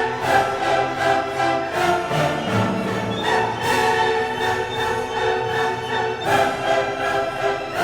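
Background music: orchestral classical music with strings.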